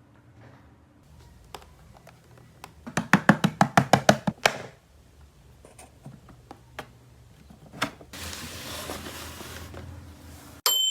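Plastic toy pieces being handled: scattered clicks and taps, a quick run of about a dozen clicks, then a rustling hiss. An electronic toy jingle starts at the very end.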